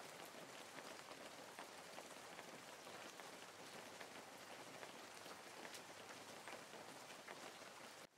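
Faint light rain, a steady soft hiss dotted with fine scattered drop ticks.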